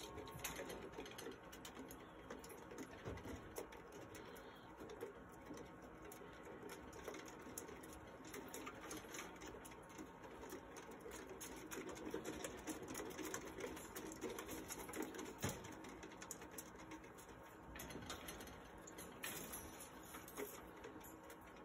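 Sugar gliders scrambling about a wire cage: faint, continual patter and scratching of small claws, with light clicks and taps against the bars and fittings.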